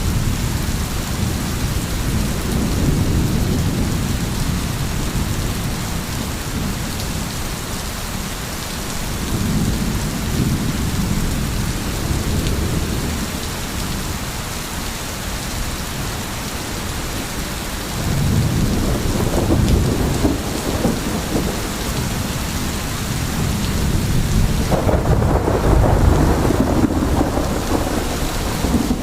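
Steady heavy rain with low rolling thunder that swells and fades several times.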